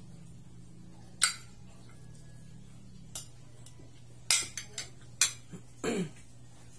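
Metal spoon and fork clinking and scraping against a ceramic plate while eating: single sharp clinks about a second in and three seconds in, then a quick run of clinks between four and five and a half seconds.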